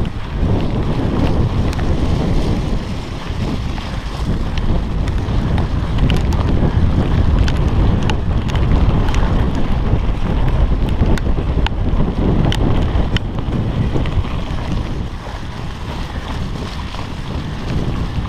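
Wind buffeting a chest-mounted GoPro's microphone during a mountain bike ride: a steady low rumble, with scattered sharp clicks and rattles from the bike on the trail.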